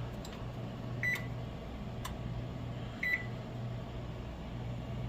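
Two short electronic beeps about two seconds apart, typical of a kitchen oven's touch control panel being pressed, over a steady low appliance hum with a few faint clicks.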